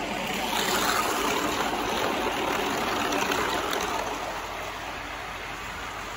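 Motorised cardboard model of a JR 205 series commuter train running on cardboard track: its small motor and wheels make a steady rushing noise that grows louder about a second in as the train comes close, then fades after about four seconds as it moves away.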